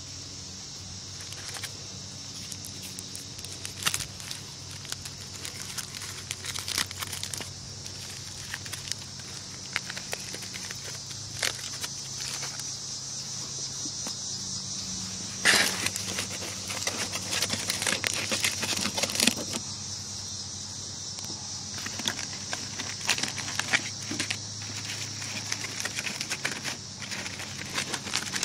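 Steady high-pitched insect chirring, with scattered small crackles and clicks throughout and one louder knock about halfway through.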